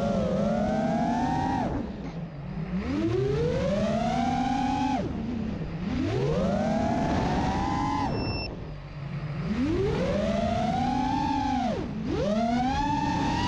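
Brushless motors and tri-blade propellers of a 5-inch FPV quadcopter whining in flight. The pitch climbs with each throttle punch and falls sharply when the throttle is cut, four times over. The propellers are broken props reused on 3D-printed folding hubs.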